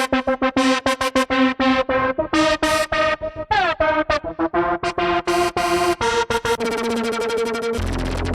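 Sequential Take 5 analog polyphonic synthesizer playing a fast run of short, sharply cut notes with bright, buzzy tones. About three and a half seconds in the pitch glides downward, and near the end the notes give way to a denser sustained sound with a deep bass.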